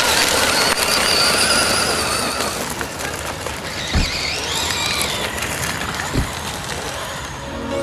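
Electric brushless motor of a 1/8-scale RC buggy (Kyosho Inferno MP 7.5 electric conversion) whining, its pitch rising and falling with the throttle, over the hiss of tyres spinning on loose gravel. Two brief low thumps come about four and six seconds in.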